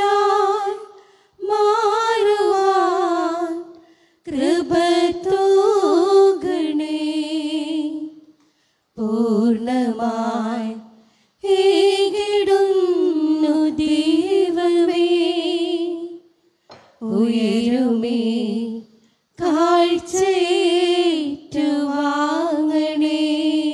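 One unaccompanied voice singing a Malayalam offertory hymn in long held phrases, the notes wavering, with short breaths between phrases.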